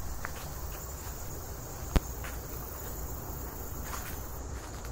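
Insects buzzing steadily in woodland, a constant high-pitched drone, over a low rumble of handling or wind on the microphone. A single sharp click about two seconds in, with a few fainter ticks.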